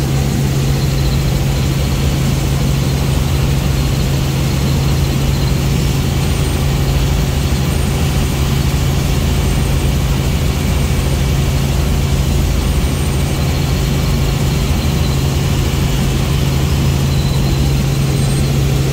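Helicopter in flight heard from inside the cabin: a steady drone of engine and rotor with a strong, constant low hum.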